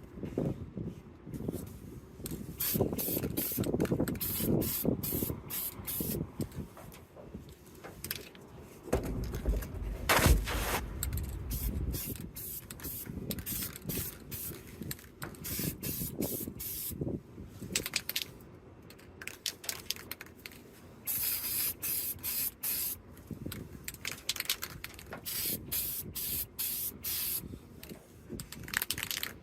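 Aerosol spray-paint can spraying in many short hissing bursts, with a loud bump and low rumble about ten seconds in.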